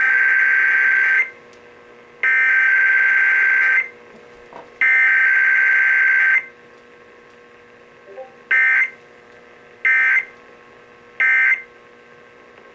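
Emergency Alert System SAME data tones on a broadcast: a shrill warbling buzz of digital code. It comes in three long bursts of about a second and a half each, then three short bursts about a second and a half apart. A faint steady hum lies underneath.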